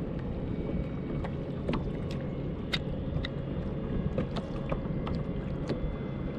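Steady wind and water noise on a kayak at sea, with irregular sharp ticks and taps, about two a second.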